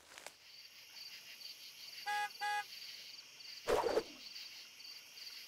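Insects chirping in a steady pulsing chorus. About two seconds in come two short, identical car-horn beeps, and a second later a single dull thud.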